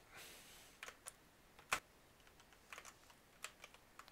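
Faint, irregular keystrokes on a computer keyboard, about a dozen scattered key clicks with one louder press about 1.7 seconds in.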